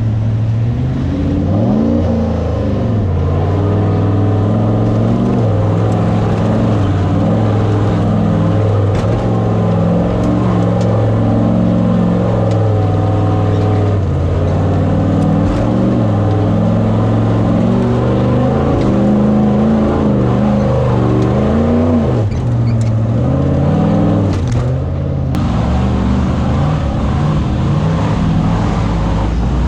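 Off-road race vehicle's engine running hard under constantly changing throttle, its pitch climbing and dropping over and over, with a brief sharp drop and recovery a little past two-thirds of the way through.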